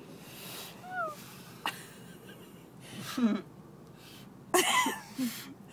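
Breathy, wheezing laughter and short exhales, with a louder sneeze-like burst of laughing about four and a half seconds in.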